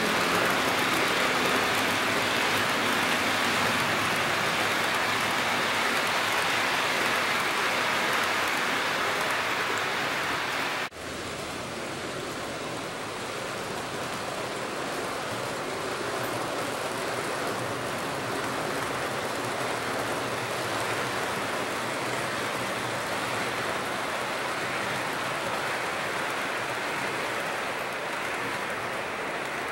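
HO-scale model container train rolling along the layout track: a steady rushing noise of metal wheels running on the rails. It breaks off abruptly about eleven seconds in and carries on quieter.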